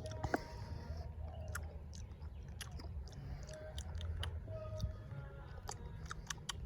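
A person sipping and tasting a cold brew coffee: scattered small mouth clicks and smacks over a steady low rumble.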